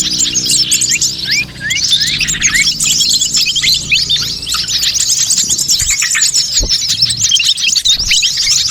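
A dense, noisy chorus of many small birds of mixed species chirping and twittering at once, with rapid overlapping short calls throughout: a bird-lure (pikat) recording meant to draw in wild birds.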